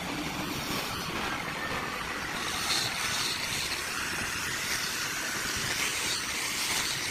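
Steady noise of woodworking power tools running, with no clear start or stop.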